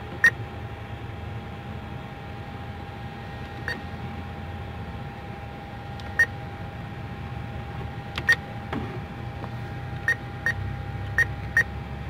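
ATM keypad beeping as its keys are pressed: short single beeps at irregular intervals, about nine in all, coming closer together near the end, over the machine's steady hum.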